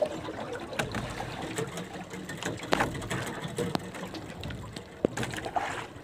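Water dripping and splashing with scattered sharp knocks and taps as a freshly caught skipjack tuna is handled aboard a small boat.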